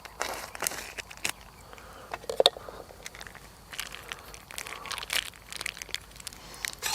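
Plastic packaging crinkling and rustling as it is handled, in irregular bursts, with one sharper, louder crackle about two and a half seconds in.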